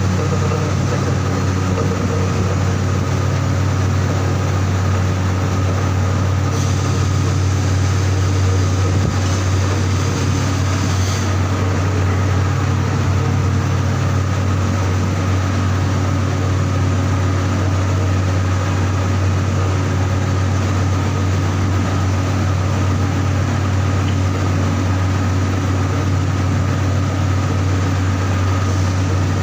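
Heavy machinery running steadily, a loud low hum with a constant faint high whine over it.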